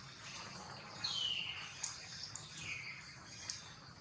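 Two high-pitched calls, each sliding down in pitch, about a second and a half apart, with a few faint clicks, over a steady high background hiss.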